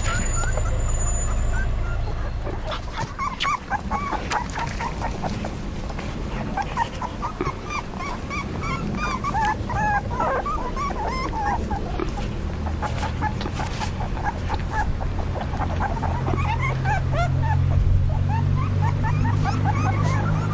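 A litter of three-week-old Belgian Shepherd puppies whimpering and squeaking, many short high-pitched yelps overlapping throughout. A low steady hum sits underneath and grows louder in the last few seconds.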